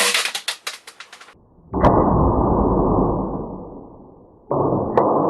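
Two airsoft pistol shots about three seconds apart, each a sharp crack followed by a dull rushing noise that fades. Before the first shot there are a few quick light clicks.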